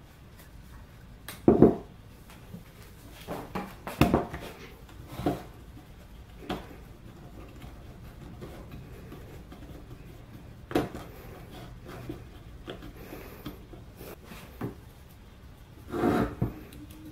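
Plywood parts of a homemade drill holder being handled and fitted together on a wooden workbench: scattered knocks and rubs of wood on wood. The loudest knocks come about one and a half seconds in and near the end.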